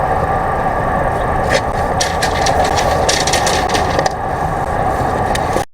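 An engine running steadily at idle, a low rumble with a steady hum over it, with a few light clicks and taps on top.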